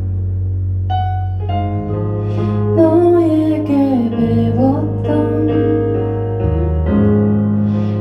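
Slow ballad on a Kurzweil SP2X stage piano, sustained chords with new ones struck about a second in. A woman's voice comes in near the middle with a wavering line that falls, then rises again.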